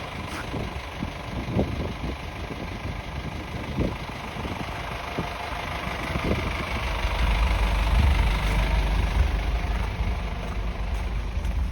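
A motor vehicle's engine running, with a low rumble that swells in the second half and then eases, over a steady city hiss. A few soft thuds of footsteps in snow come through in the first half.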